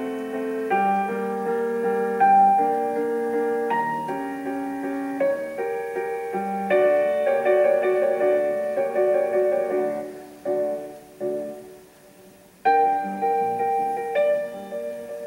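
Solo piano music, a gentle melody of held notes and chords, with a short pause near the end before a new phrase.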